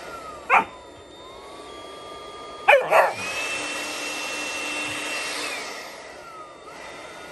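Handheld electric leaf blower running, a rush of air with a motor whine that rises and falls in pitch as its speed changes. Over it a malamute puppy barks sharply, once about half a second in and twice close together around three seconds in.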